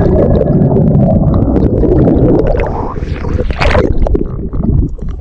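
Water noise heard underwater through a submerged action camera: a muffled low rumble and gurgling, with scattered small clicks.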